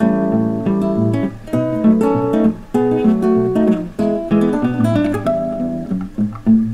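Background music: acoustic guitar playing a run of notes with a steady rhythm.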